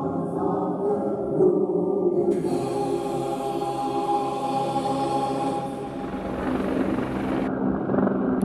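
A choir singing long held notes; over the last two seconds or so the steady drone of a formation of military helicopters flying over grows in beneath it.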